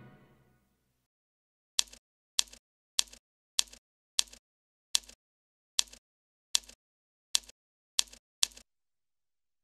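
Music fades out, then comes a series of about eleven sharp mechanical clicks, one every 0.6 to 0.8 s, each a hard strike followed by a softer second tick. They are a sound effect for the title's letters appearing one by one.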